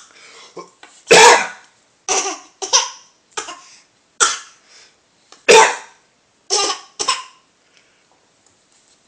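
Repeated deliberate coughs, a young child imitating an adult's cough: about nine short coughs, some in quick pairs, stopping about seven and a half seconds in.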